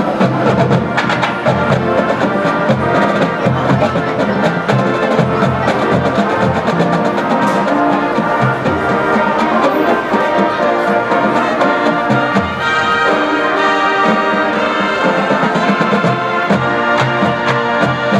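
Drum and bugle corps playing: massed brass horns over marching drums.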